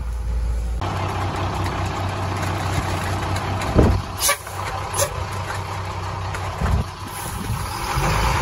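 Heavy diesel engine running close by: the dump truck's engine, steady and loud, broken by a few short, sharp sounds around four to five seconds in and again near seven seconds.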